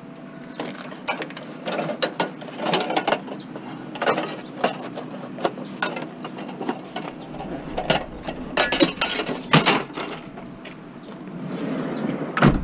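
Mechanical clicking and metallic rattling in irregular bursts of a second or two, the loudest cluster about eight to ten seconds in.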